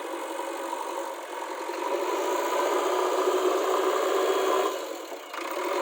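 JCB backhoe loader's diesel engine running steadily. It grows louder about two seconds in and eases off briefly near the end.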